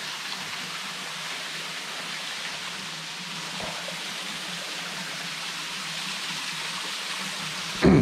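Steady hiss of water falling and splashing down Ganoga Falls, running low with only a small flow of water.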